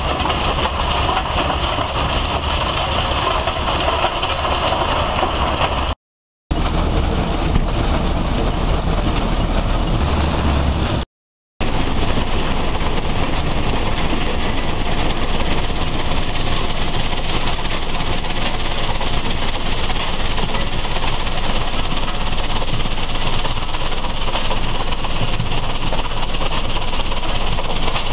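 Svedala mobile crushing and screening plant running, with its crusher, screen and conveyors working rock. It makes a loud, steady mechanical noise with a deep hum underneath, broken by two brief silences about six and eleven seconds in.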